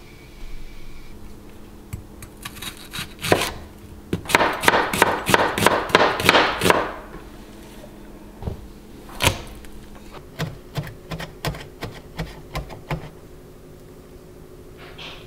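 Kitchen knife chopping on a wooden cutting board, slicing onion and mincing garlic. A fast run of strokes comes a few seconds in, then slower, separate strikes of the blade on the board.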